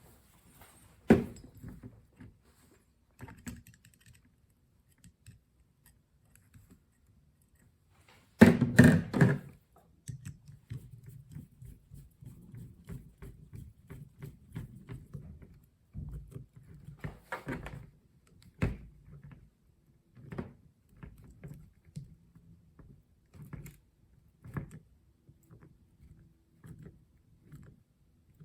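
Handling noise from wiring a porcelain lampholder's screw terminal: scattered small clicks, taps and thunks of the wire, screw and tool. A louder cluster of knocks comes about nine seconds in.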